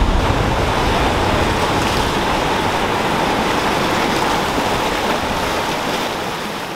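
Small waves washing in over shoreline rocks: a steady rush of surf, easing off near the end.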